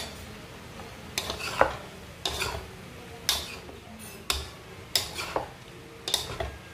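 A wooden spatula and a metal spoon scraping and knocking against a metal wok as stir-fried vegetables and tofu are tossed, with a stroke about every second.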